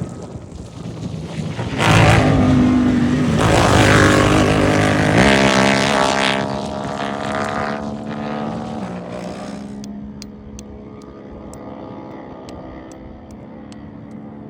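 Turbocharged UTV engines at race speed. A loud pass starts about two seconds in, with the engine pitch climbing and dropping with the throttle. It then fades to a quieter, steady engine drone, with faint regular ticks near the end.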